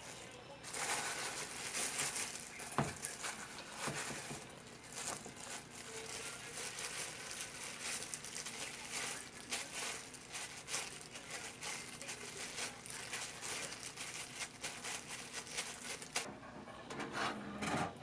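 Thin disposable plastic glove crinkling and rustling as gloved hands press ground meat into green pepper halves. It eases off near the end.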